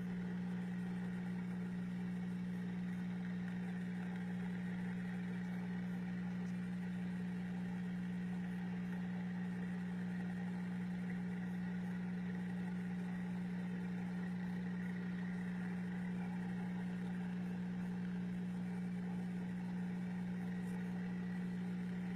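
Steady low machine hum that does not change, with a strong low pitched drone.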